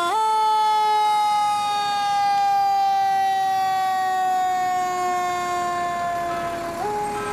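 Fire engine siren sounding one long tone that slowly falls in pitch, jumping back up just after the start and again near the end.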